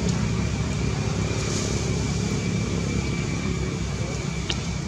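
Steady low rumbling background noise with a faint, steady high whine, and one brief click about four and a half seconds in.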